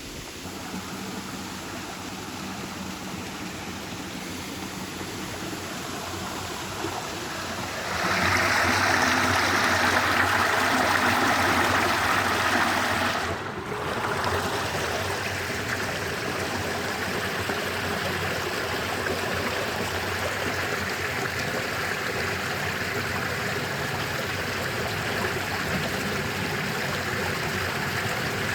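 Stream water running steadily over stones. About a third of the way in the rush grows louder and brighter for a few seconds, then drops off sharply and settles back to an even flow.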